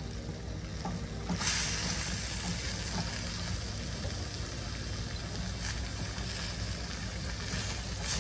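Shredded cabbage, onions and peppers sizzling in a stainless steel sauté pan, the sizzle turning louder about a second and a half in, with a few light scrapes of a spatula stirring, over a low steady hum.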